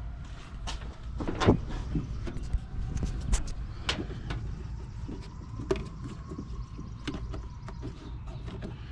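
Irregular clicks and knocks of hands handling parts and sensor connectors in a car's engine bay, over a steady low hum.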